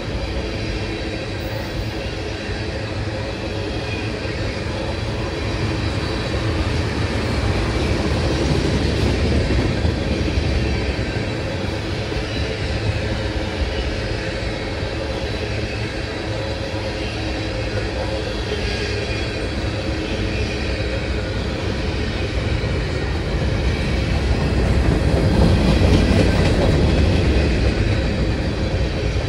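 Freight train cars rolling past on the rails: a steady rumble of steel wheels on track that swells louder about a third of the way in and again near the end.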